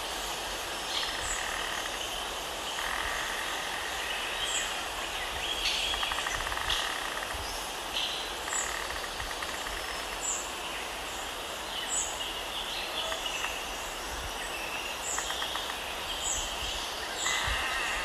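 Outdoor ambience by a flock of mallards: scattered short duck calls over a steady background hiss, with brief high chirps from small birds every second or two.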